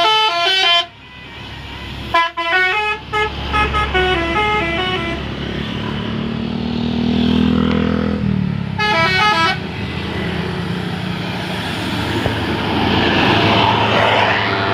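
Telolet multi-tone bus horns playing short stepped melodies in three bursts: at the start, a couple of seconds in, and again about nine seconds in. Between them a coach's diesel engine runs, revving up and then dropping sharply at about eight seconds.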